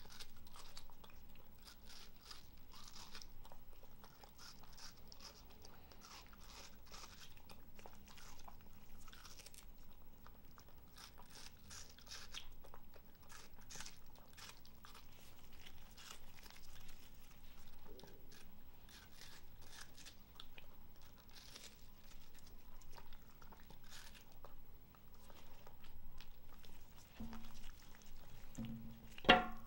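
Papillon dog biting and chewing a slice of watermelon, close up: a steady run of small crunching bites. Near the end, one sudden louder sound.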